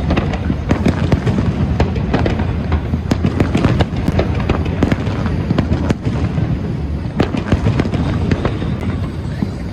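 Aerial fireworks shells bursting in rapid succession: many sharp bangs close together over a continuous low rumble, with no pause.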